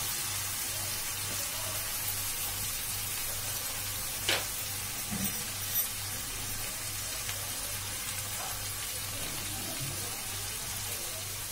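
Onion, tomato and green chillies sizzling gently in oil in a nonstick kadhai, a steady frying hiss, being fried lightly until the tomatoes soften. A single sharp click about four seconds in and a few softer ticks.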